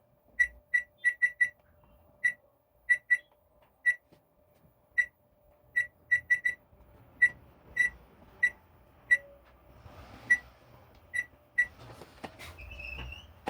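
Samsung microwave oven's control panel beeping once per key press, about two dozen short beeps at the same pitch in uneven runs, as the new touch pad registers its buttons.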